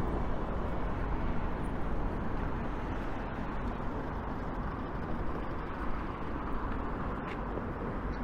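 Road traffic on a town street: vehicles running by with a steady mix of engine and tyre noise.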